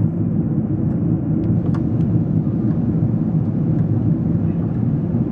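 Steady low cabin rumble inside a Boeing 777-200ER in flight, from its GE90 engines and the air rushing past the fuselage.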